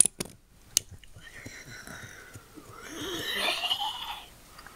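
A few light clicks of plastic toy figures being knocked about. Then a drawn-out wordless vocal sound effect from a person's voice, wavering in pitch and swelling towards the end before it stops.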